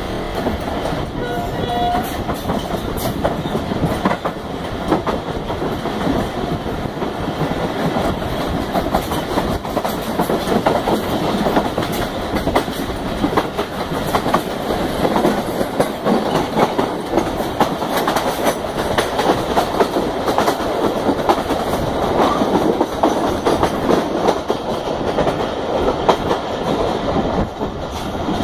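Passenger train running along the track, heard from a coach window: a steady rumble with the wheels clattering over the rail joints.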